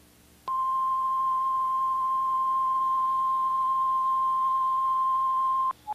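A steady electronic test tone at a single high pitch, starting half a second in and holding for about five seconds before cutting off sharply, followed by a brief blip at a slightly lower pitch. It is a reference tone of the kind left on a video tape after the programme ends, with faint tape hiss around it.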